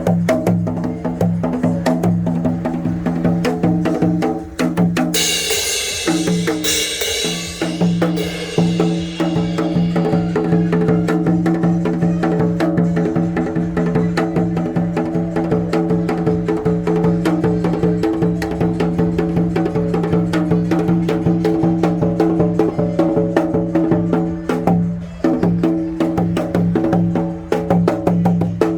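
Janggu, the Korean hourglass drum, played in a fast trot rhythm with dense, rapid strokes over steady low tones. A bright wash of high noise sets in about five seconds in and fades away over the next few seconds.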